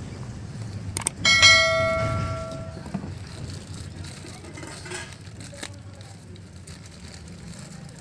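A sharp metallic strike about a second in, ringing clearly like a small bell for about a second and a half before fading, over a low steady background hum.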